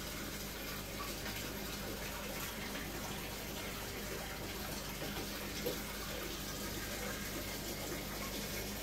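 Aquarium water running and splashing steadily from the tank's filter circulation, with a steady low hum beneath.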